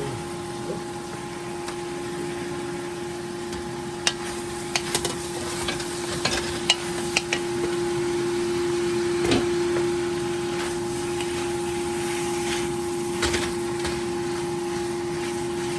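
Stovetop cooking with a steady hum and hiss, and scattered light metal clinks and knocks of the pot and its lid from the middle on, with a few more near the end.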